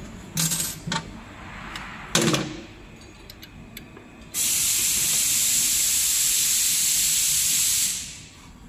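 A few sharp metal knocks and clinks as steel wheels and shaft parts are handled. Then a steady, loud hiss of compressed air on the pneumatic wrapping machine starts suddenly, lasts about three and a half seconds and fades out.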